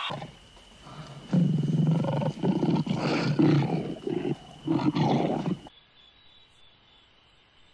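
A lion roaring: a run of deep calls in several pulses over about four seconds, cutting off abruptly near the end.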